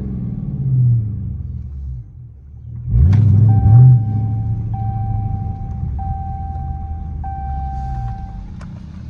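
Dodge Charger R/T's straight-piped 5.7-litre HEMI V8 exhaust, heard from the driver's seat: a short rev about a second in, then, after a brief easing off, a rising rev about three seconds in, the loudest part. It then settles to a steady rumble while cruising. A steady high tone with short breaks sounds over it from about halfway.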